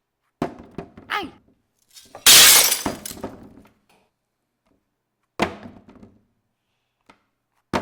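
Handmade foley sound effects for a fall: two knocks that ring briefly, then about two seconds in a loud shattering crash like breaking glass that fades over about a second, followed by a single knock and another near the end.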